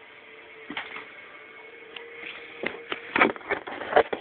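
Irregular clicks and knocks over a faint steady hum, sparse at first, then coming thick and loud a little past three seconds in and again near the end.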